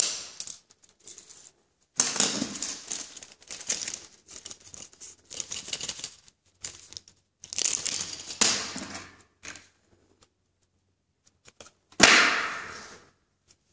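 Small clear plastic packaging bag rustling and crinkling as it is handled, in several separate bursts. The loudest burst starts sharply near the end and fades out over about a second.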